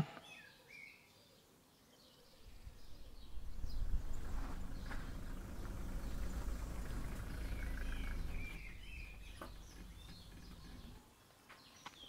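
Outdoor street ambience: a low rumble swells in a couple of seconds in, holds, and fades away near the end. A few faint bird chirps sound over it.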